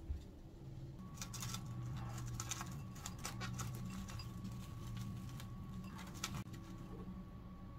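Plastic cling film crinkling and crackling in irregular bursts as it is handled and peeled off a bowl.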